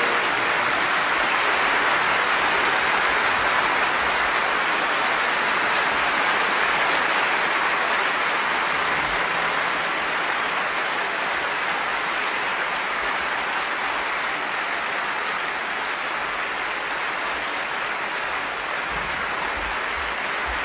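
Live opera-house audience applauding steadily right after an aria ends, a long ovation that eases slightly in its second half.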